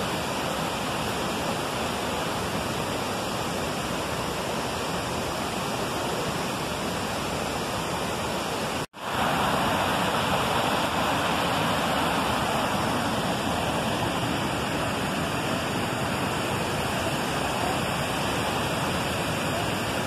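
Steady rushing of a waterfall and flowing river water. It drops out for an instant about nine seconds in and comes back slightly louder.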